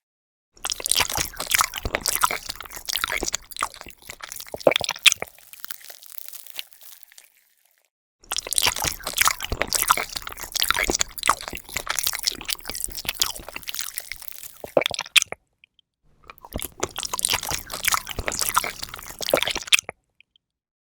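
Crisp crunching and crackling in three stretches, each broken off abruptly into silence.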